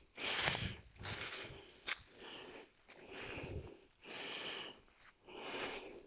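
Footsteps crunching through dry leaf litter and cut branches, about one step a second, with a sharp snap of a twig about two seconds in.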